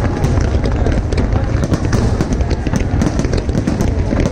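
Fireworks display going off without pause: many sharp crackles and pops over a continuous low rumble of bursts.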